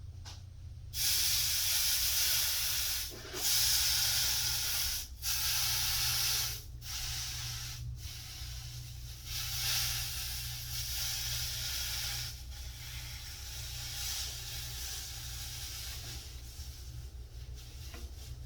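Water hitting hot, freshly soldered copper pipe joints and flashing to steam: loud hissing in four bursts of a second or two over the first seven seconds, then a steadier, fainter hiss that slowly dies away as the copper cools.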